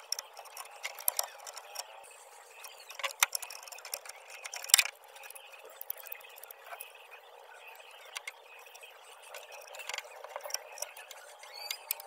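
Clicks and knocks of a refrigerator compressor's plastic start relay being worked loose and pulled off its terminal pins by gloved hands, with the loudest sharp snap nearly five seconds in, followed by lighter rattling of its wires.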